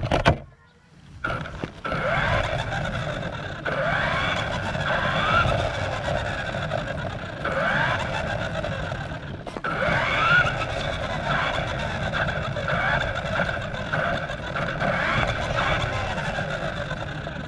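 Remote-control car's motor whining, its pitch rising and falling again and again as the car speeds up and slows, over a rumble of the small tyres rolling on a concrete path. A sharp knock comes right at the start.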